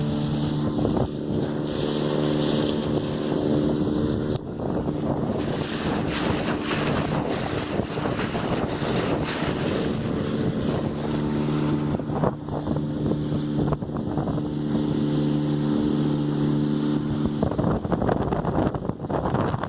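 A boat motor running with a steady hum, heard with rushing water and wind on the microphone. The motor's tone stands out clearly near the start and again in the second half, and is covered by the water and wind noise in between. There is one sharp click about four seconds in.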